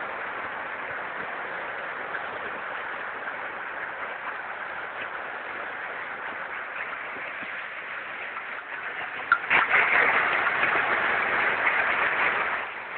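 Hailstorm: hail falling on hard surfaces, a steady hiss of many small impacts. About nine seconds in a sharp knock is followed by a much louder stretch of about three seconds, which eases just before the end.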